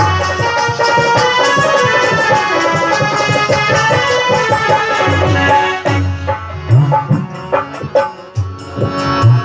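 Instrumental interlude of a live Bundeli folk song: a harmonium-like reed melody over a hand drum. About six seconds in the melody drops away and the drum strokes come to the fore.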